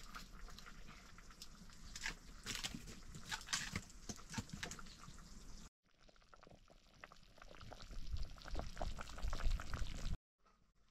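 Curry boiling hard in a metal wok over a wood fire: a dense stream of small bubbling pops.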